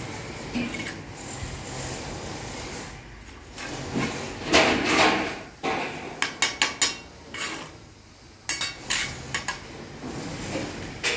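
Bricklayer's steel trowel scraping and scooping mortar from a bucket, then a quick run of sharp taps as bricks are knocked down into the mortar bed, with more scattered taps later.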